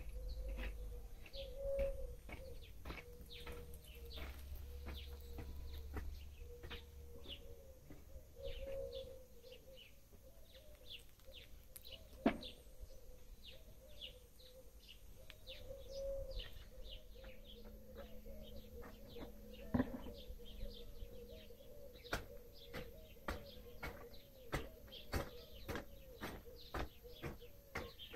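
Small songbirds chirping and tweeting in many short, quick calls that come faster toward the end, over a faint steady hum, with a few sharp clicks.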